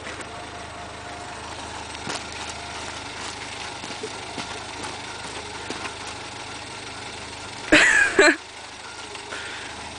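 Steady hiss with a few faint knocks and rustles, then, about eight seconds in, a loud half-second shriek from a person's voice, broken in two.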